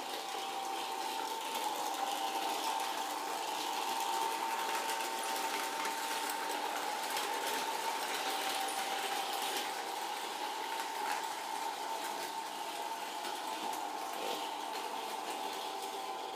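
Gilbert American Flyer 499 New Haven electric model locomotive running around the track pulling its cars: a steady motor whine over a fine, continuous rattle of wheels on the track.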